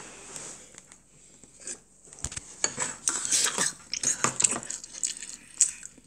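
A metal spoon clinking and scraping against a ceramic bowl as rice and canned tuna are scooped up, with a sharp knock about two seconds in, followed by a cluster of close-up eating sounds as a spoonful is taken.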